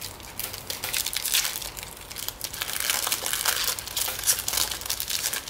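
Foil wrapper of a Panini Premier League football card pack crinkling and crackling as it is opened and handled.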